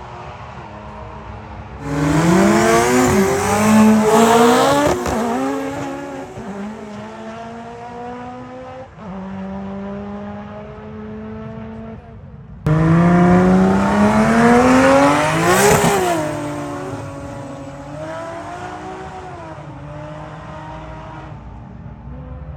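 High-powered cars accelerating flat out in a roll race, engines revving sharply up in pitch through the gears. Two loud runs start abruptly about two seconds in and again about halfway; the second climbs to a peak and then drops away in pitch as the car passes.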